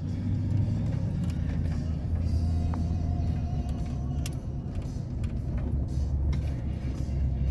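Steady low road and engine rumble heard from inside a moving vehicle's cabin, with a few faint clicks.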